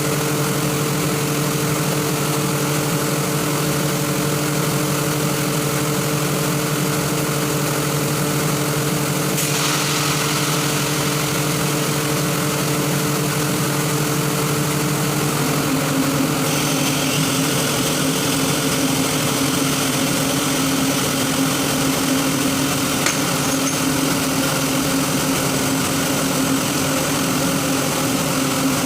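Rotary screw air compressor running with a steady, loud hum. About halfway through, its pitch shifts slightly and a higher whine joins in. Two brief clicks sound, one about a third of the way in and one near the end.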